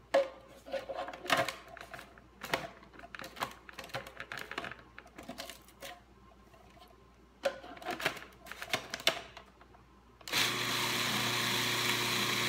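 Plastic clicks and knocks as the food processor's lid is fitted onto the bowl. About ten seconds in, its electric motor starts and runs steadily, blending the dry ingredients for the cake batter.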